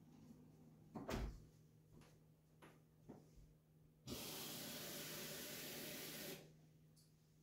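A kitchen tap runs in a steady rush for about two seconds and shuts off abruptly, after a knock about a second in and a few faint small knocks.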